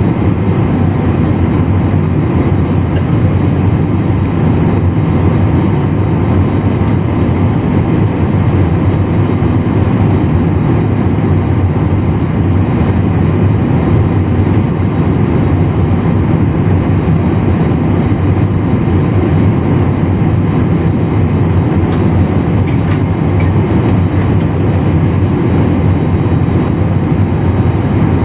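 Airliner cabin noise heard from a window seat: a loud, steady low rumble that holds unchanged throughout.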